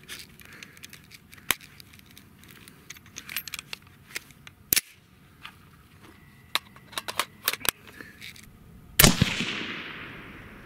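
Scattered metallic clicks and clacks of an AR-15 being worked by hand to clear a repeating brass-ejection malfunction. About nine seconds in comes a single shot from the .223 rifle through its Liberty Infiniti X suppressor, the loudest sound, with its echo trailing away over a second or so.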